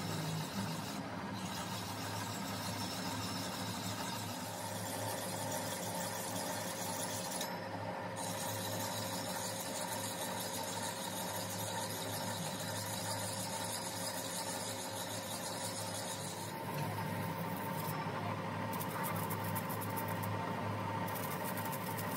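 Lathe running with a crankshaft spinning in the chuck while a hand file is held against the turning journal to dress it smooth: a steady motor hum under the rough rubbing of the file on the steel. A thin steady whine joins about four seconds in, and the sound gets a little louder about two-thirds of the way through.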